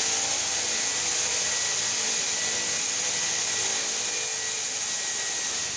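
Laser cutting machine running: a steady hiss with a high whine. Near the end it shuts off and the whine winds down.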